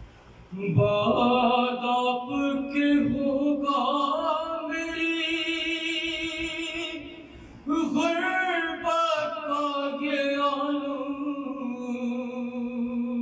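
A man singing a devotional kalam (salam) solo and unaccompanied into a microphone: two long sung phrases with wavering, held notes, the second starting after a short breath about halfway through.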